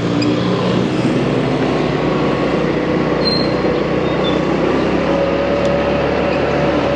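A motorcycle on the move: steady engine drone mixed with road noise.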